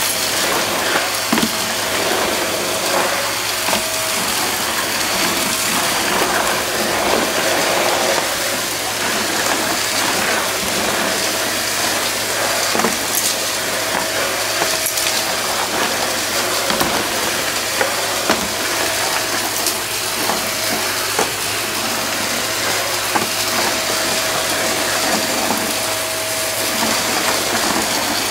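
Stick vacuum running over a hardwood floor, its floor head sucking up scattered debris with frequent crackling clicks and crunches as the bits rattle through. A steady whine from the vacuum comes and goes.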